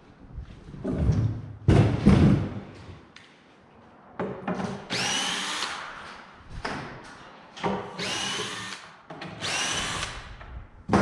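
Heavy thumps as the carpeted subwoofer box is handled and turned over, the loudest about two seconds in. Then a cordless drill-driver runs in about four short bursts, its whine rising as each spins up, backing the screws out of the box.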